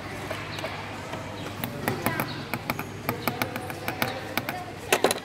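Stone-setting hand tools clicking and tapping on a piece of jewellery held in setter's pitch. The clicks are irregular and sharp, grow more frequent about two seconds in, and the loudest cluster comes near the end.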